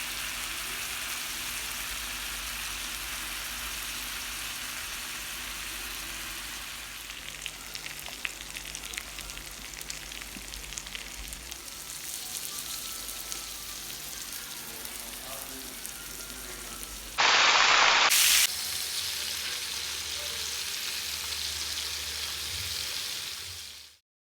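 Meat sizzling on a hot tawa griddle: a steady frying hiss with scattered crackling pops. A much louder hiss flares for about a second past the middle, then the sizzle goes on and cuts off suddenly near the end.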